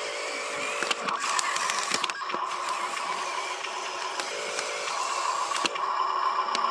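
Small electric motor and gearbox of a radio-controlled dump truck whining steadily as it works, with scattered sharp clicks over the top.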